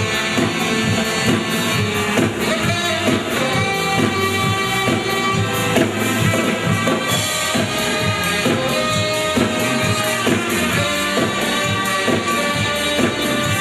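Upbeat instrumental music with a steady beat and sustained melody notes, played throughout.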